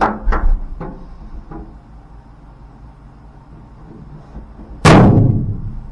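A few light knocks, then about five seconds in one loud bang that rings out for about a second, from metal being struck during work on the truck bed.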